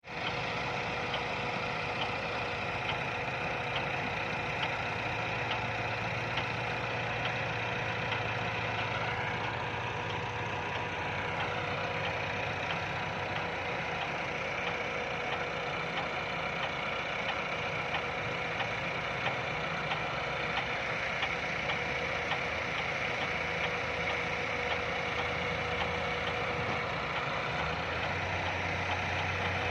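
Diesel engine of heavy machinery running steadily, with a brief rise in pitch about ten seconds in.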